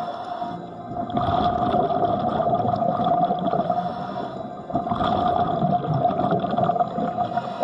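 Underwater sound picked up by a 360 camera in a waterproof housing: a crackly water noise with a steady hum underneath, dipping twice and then swelling back.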